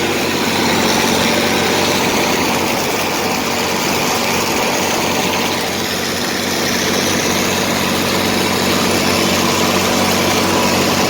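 Tractor engine running steadily at a constant speed, with the even hum and rattle of working in the field.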